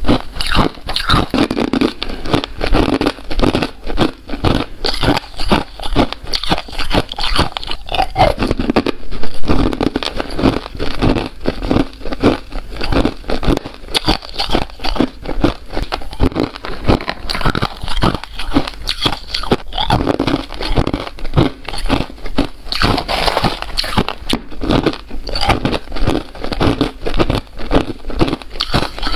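Crunchy ice being bitten and chewed: a loud, dense, continuous run of crunching and crackling.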